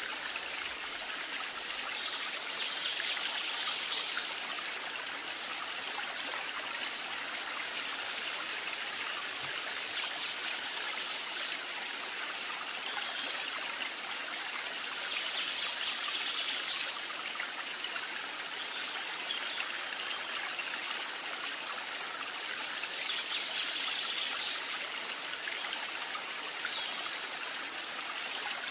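Steady running water, an even trickling stream with slight swells every several seconds.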